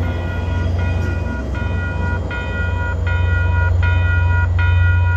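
Diesel locomotive at the rear of a push-pull commuter train passing close by with a steady low rumble. Over it, a grade-crossing warning bell rings over and over, about one ring every three-quarters of a second.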